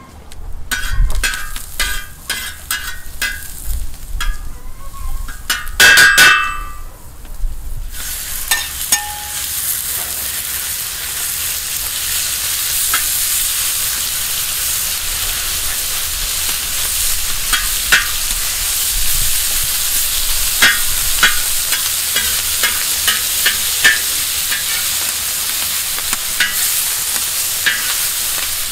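Metal utensil knocking and clinking against a pan for the first several seconds, with one loud ringing clang about six seconds in. About eight seconds in, food starts sizzling steadily in the hot pan, with the taps and scrapes of stirring.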